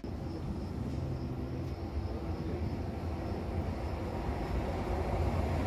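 Trenitalia E.464 electric locomotive hauling a regional train toward the platform, a low steady rumble that slowly grows louder as it approaches.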